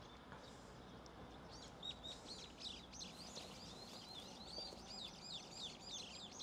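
Small birds twittering: a quick run of short, high chirps that starts about two seconds in and carries on to the end.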